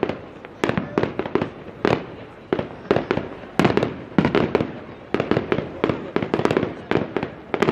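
Fireworks going off in a rapid, irregular volley of sharp bangs, several a second, each trailing off briefly, with the loudest reports about halfway through.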